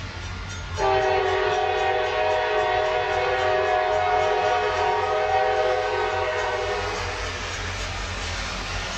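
Nathan Airchime K5LA five-chime horn on a Union Pacific SD70M diesel locomotive, sounding one long, steady chord that starts abruptly about a second in and lasts about six seconds. The approaching train's rumble carries on under it and after it.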